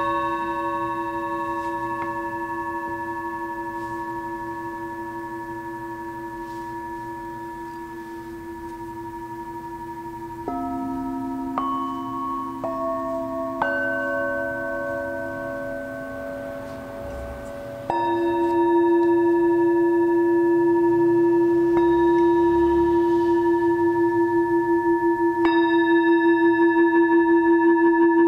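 Metal singing bowls struck with a wooden mallet, their ringing tones overlapping. Earlier tones fade away, several fresh strikes come in quick succession near the middle, and a louder tone about two-thirds in holds steady instead of dying away, wavering quickly near the end.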